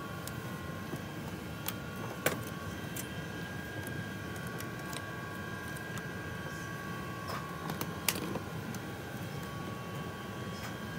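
Steady airliner cabin hum, with a few sharp clicks from the seat's side console as it is handled and a storage compartment is opened.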